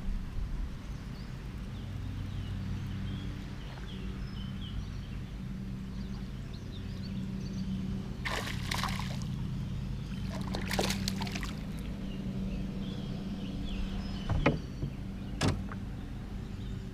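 Steady low motor hum with faint high chirps over it. Two short rustling noises come about halfway through, and two sharp clicks near the end.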